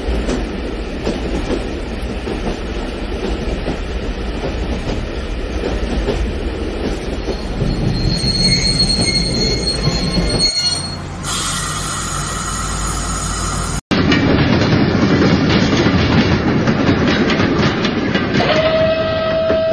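Large-scale electric model train, with diesel-style locomotives pulling passenger coaches, rolling along its track with a steady clatter of wheels on rail and a thin wheel squeal partway through. The sound changes abruptly twice, and a steady horn-like tone starts near the end.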